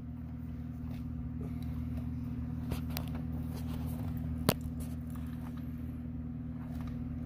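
Small clicks and faint crackles of bare speaker-wire strands being twisted together by hand, with one sharper click about halfway through, over a steady low hum.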